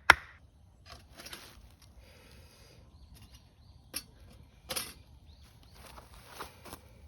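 One last sharp chop into wood, then quieter rustling and handling of the wood, with two sharper knocks about four and five seconds in.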